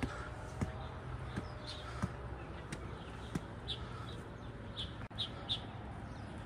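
Small birds chirping in short high calls over a steady low background hum, with soft knocks repeating about every two-thirds of a second through the first half.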